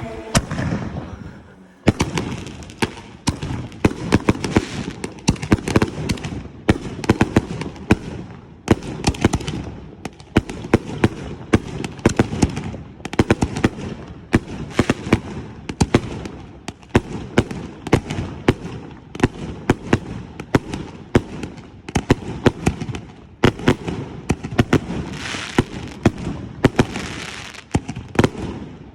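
Consumer fireworks finale: a dense barrage of sharp bangs and crackling reports, several a second. It starts about two seconds in and keeps on with no break.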